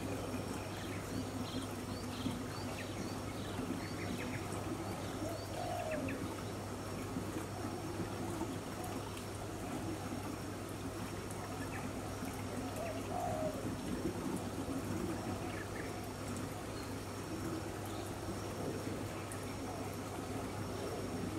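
Tropical garden birds calling: many short high chirps, and lower calls twice, over a steady low hum.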